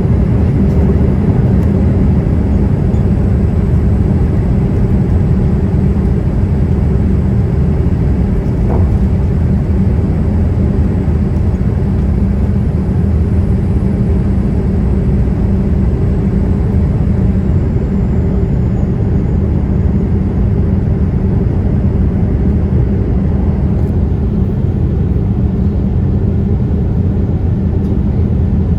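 Steady, loud low roar of a Boeing 787-8 airliner's engines and airflow, heard from inside the passenger cabin.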